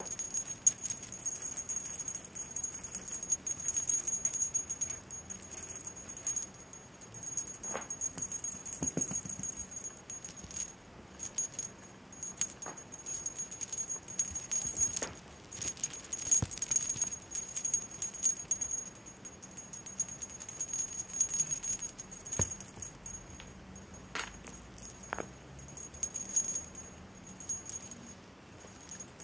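Cat toy balls rattling and jingling irregularly as a kitten bats and chews them, with a thin steady high tone underneath.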